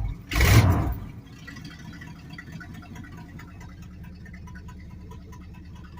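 1991 Dodge Dakota's 318 V8 idling with its exhaust cut off, with a brief loud burst about half a second in, then a steady low idle.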